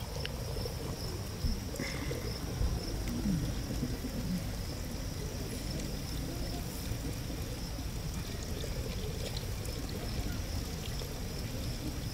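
Water poured in a steady stream from a metal pitcher onto a person's hands, splashing and trickling into a metal pail below. A steady high insect chirring runs underneath.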